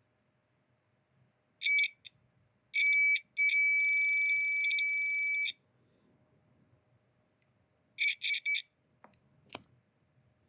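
Multimeter continuity beeper sounding as the probes touch the harness pins and wires: a few short beeps, one beep held for about two seconds, then three quick beeps near the end. Each beep signals a closed circuit, tracing which wire runs to which connector pin.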